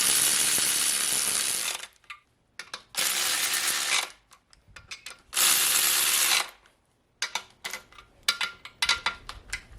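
A power ratchet runs in three bursts of one to two seconds, running down the main cap bolts on an LS engine block, followed by a string of light metallic clicks and clinks.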